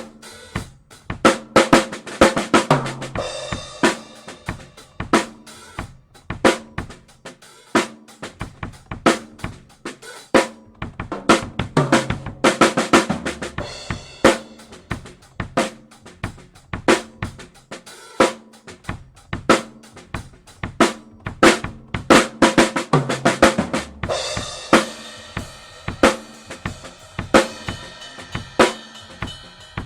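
Drum kit played in a steady groove of snare, bass drum and hi-hat, picked up by an AKG P3S dynamic microphone placed on the snare. Three times (about a second in, around the middle, and a little past two-thirds through) the playing gets busier with lower-pitched drum hits, and after the third a cymbal rings on.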